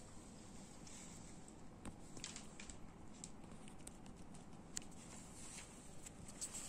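Cat eating dry kibble from a ceramic bowl: faint, irregular little crunches and clicks as it chews.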